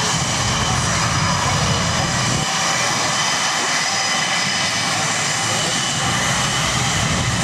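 Blue Angels jet aircraft engines running: a steady, loud rush of jet noise with several steady high whining tones through it. The deep rumble drops away about two and a half seconds in and comes back near the end.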